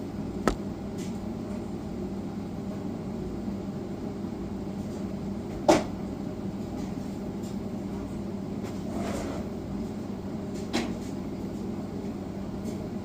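Three sharp knocks, the loudest about halfway through, over a steady low hum.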